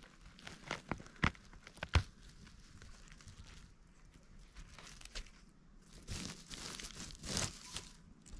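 A porcini (Boletus) mushroom being twisted and pulled out of spruce-needle litter by hand, with sharp snaps and crackles of needles and twigs in the first two seconds, then rustling and scraping of the forest floor near the end.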